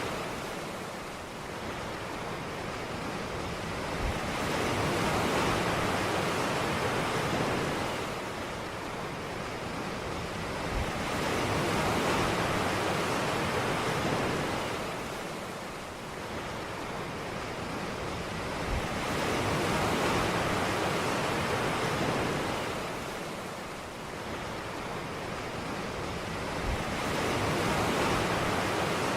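Ocean surf washing onto a beach, the noise of the waves swelling and falling back about every eight seconds.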